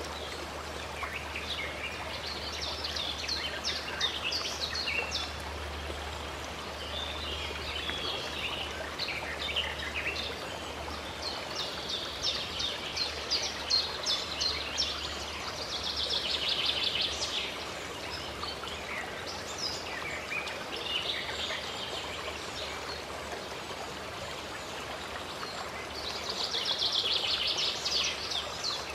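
Small songbirds chirping and twittering over the steady rush of running water, with a fast, dense trill about halfway through and another near the end.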